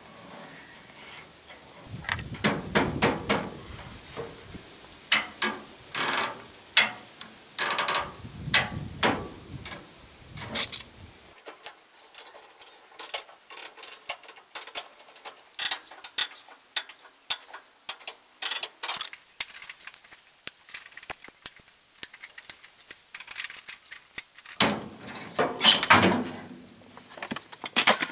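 Hand tools and a clamp worked against a car's aluminum grille and sheet-metal front end: irregular sharp clicks, taps and metallic rattles, with heavier knocks about two seconds in, around eight to ten seconds, and the loudest near the end.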